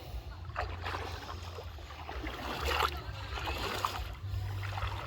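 Mountain river water splashing and running, with irregular short splashes over a steady low rumble.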